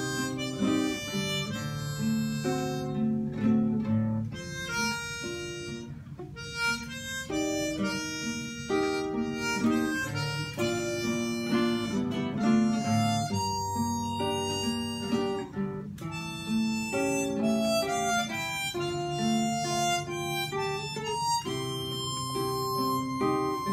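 Harmonica playing the melody in held notes over a nylon-string classical guitar plucking the accompaniment: an instrumental passage with no singing.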